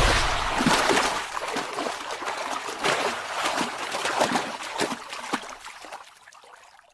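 Crocodile thrashing in the water with a bird it has just seized: heavy splashing and sloshing, loudest at the start, that breaks into smaller splashes and dies away over about six seconds.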